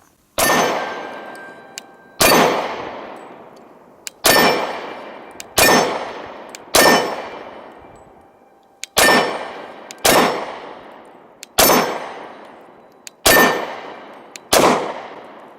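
Ten shots from a Glock 23 Gen 4 .40 S&W pistol, fired one at a time at a steady deliberate pace. Each report is sharp and rings out in a long echoing decay.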